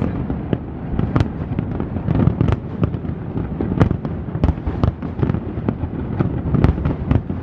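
Aerial firework shells bursting in quick succession: sharp bangs about two a second over a continuous low rumble.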